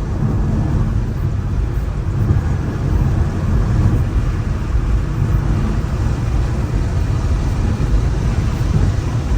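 BMW M5 Competition's twin-turbo V8 cruising on a wet highway, heard from inside the cabin: a steady low rumble of engine and tyres with a hiss of spray from the rain-soaked road.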